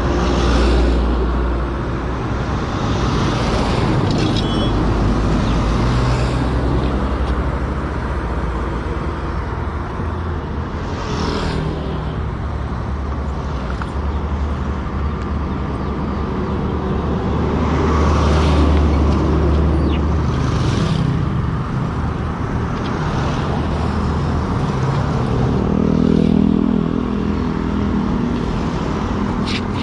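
Motor vehicle running on the road: a steady low engine and road rumble, with an engine note rising near the end.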